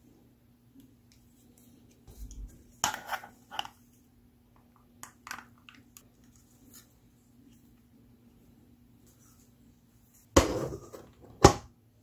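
Plastic anime figure being handled: scattered light clicks and taps of hard plastic, then two louder knocks with a brief clatter near the end, over a faint steady hum.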